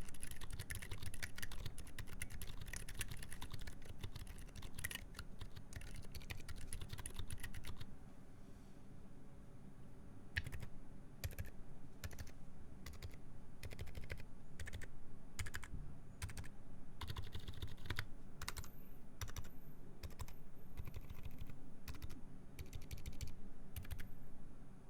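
Typing on a Duck Octagon v3 mechanical keyboard with Gazzew U4 Boba silent tactile switches, GMK keycaps and a full FR4 plate. Fast, dense keystrokes for the first eight seconds or so, a brief pause, then slower, more spaced-out keypresses.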